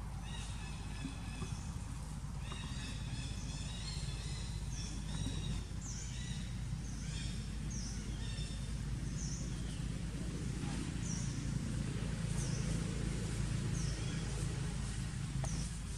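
Short, high, falling chirp-like animal calls, repeated about once a second from a few seconds in, over a steady low hum.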